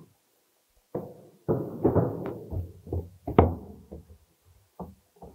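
Plastic drainage stack with T-branches knocking and clunking against the wall and fittings as it is set upright into position: a string of knocks, the sharpest about three and a half seconds in.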